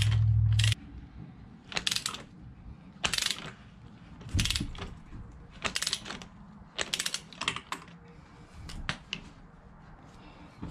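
Torque wrench with a 6 mm hex socket ratcheting as a rear-set saver bolt is tightened, in short clicking bursts about once a second. A brief low rumble, the loudest thing, comes right at the start.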